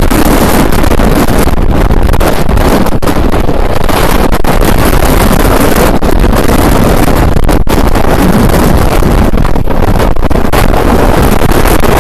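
Typhoon-force wind blasting the microphone with a loud, continuous rushing noise, broken by brief momentary dips.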